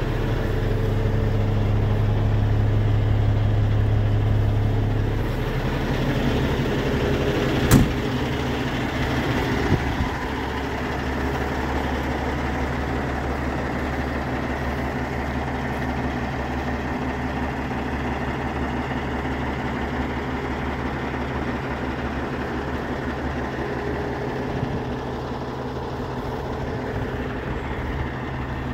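Cummins ISX15 inline-six diesel of a 2014 Peterbilt 367 idling steadily, heard at first from inside the cab and then from outside the truck. A single sharp knock about eight seconds in, and a smaller one two seconds later.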